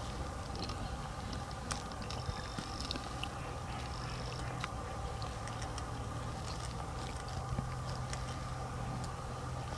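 Brown rat nibbling at a chunk of pumpkin-seed bait cake: faint scattered small clicks and rustles over a steady low hum.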